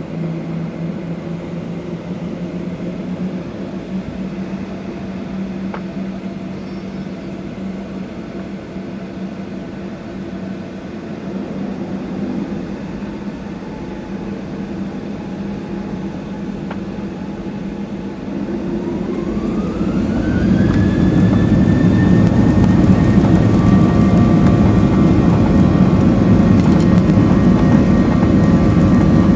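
Boeing 737-800's CFM56-7B turbofan engines heard from inside the cabin, idling steadily. About 18 seconds in they spool up to takeoff thrust: a rising whine that levels off, with the rumble growing much louder.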